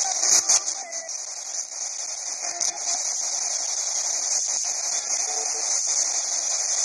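Pocket radio used as a spirit box, sweeping through stations: a steady hiss of radio static, with a few faint short snatches of sound in the first seconds.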